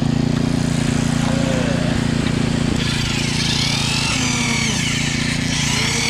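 Steady mechanical drone with an even low hum from machinery running at a concrete pour.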